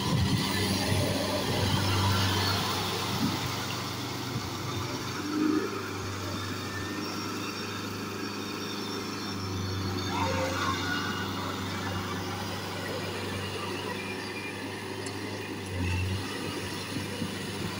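Kubota L4508 tractor's diesel engine running steadily under load as it works a flooded, muddy field.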